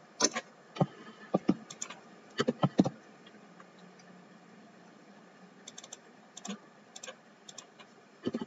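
Computer keyboard keystrokes as a line of code is copied and pasted: a quick run of sharp key clicks in the first three seconds, then a few lighter taps later on.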